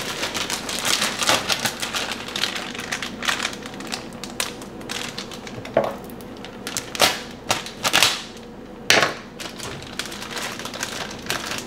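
A plastic bag of frozen mixed vegetables being handled, with irregular crinkling and sharp clicks and rustles. The loudest snaps come between about six and nine seconds in.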